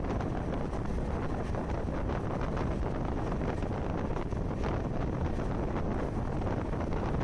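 Wind buffeting the microphone over the steady running rumble of a moving passenger train, recorded from an open door or window of the coach.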